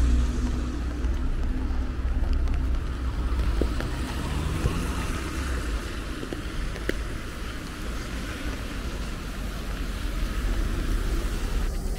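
Wind on the microphone, a steady low rumble, over an even hiss of traffic on wet streets.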